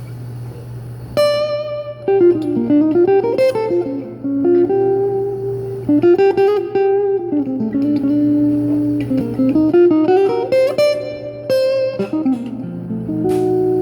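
Ovation Celebrity Elite CE48P acoustic-electric guitar played with picked single notes and chords, the pitch sliding up and down between notes, starting about a second in. A steady low hum runs underneath.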